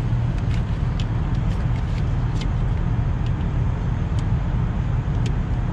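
Steady low rumble of an idling engine, with a few faint clicks scattered through it.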